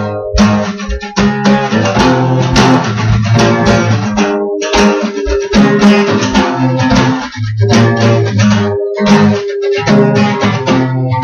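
Guitar strumming chords in a steady rhythm, with no singing, broken by two short pauses about four and a half and nine seconds in.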